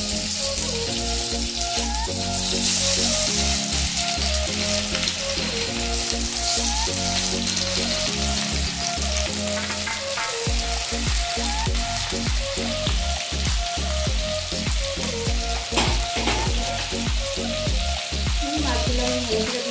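Pieces of marinated rohu fish frying in hot butter and refined oil in a kadai: a steady sizzle, with sharper crackles and pops in the second half as more pieces go into the oil.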